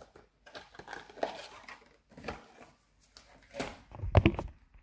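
Handling noise: a string of small knocks and clinks, with a louder cluster of thumps near the end.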